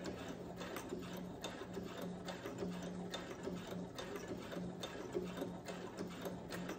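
Brother CS7000X computerized sewing machine stitching bias tape onto fabric: a steady motor hum under a rapid, even clicking of the needle mechanism.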